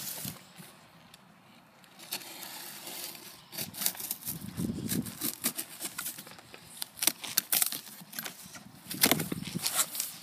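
Packing tape on a cardboard shipping box being slit with a knife and the box flaps pulled open and handled: a run of scrapes, rustles and sharp clicks that starts about two seconds in and is busiest near the end.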